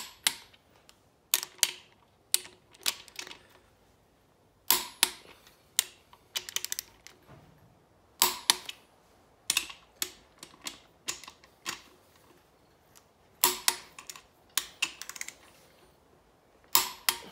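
Craftsman click-type torque wrench on the main bearing cap bolts of a Honda engine block: sharp metallic clicks every second or so, some in short quick runs of ratchet ticks. Each bolt is being pulled up to its final torque and the wrench clicks over.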